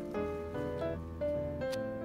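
Background instrumental music: a melody of short held notes that change pitch several times a second.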